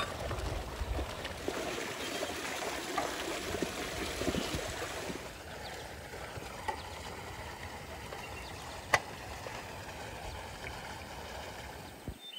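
Steady splashing of running water from a stone spring fountain, with light metal clinks of a samovar's lid and chimney being fitted in the first few seconds and one sharp click about nine seconds in.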